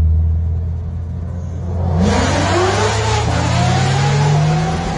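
Chevrolet Corvette's V8 accelerating hard, with a low steady drone at first, then the engine note climbing in pitch and getting louder about two seconds in as the car pulls away.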